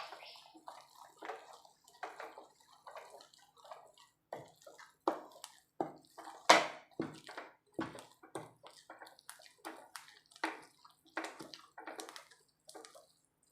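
Thick fenugreek, rice and palm-jaggery dough being stirred and pressed in a pan with a churner (mathu) as it cooks and thickens, giving a run of short wet sounds, roughly two a second and uneven in strength.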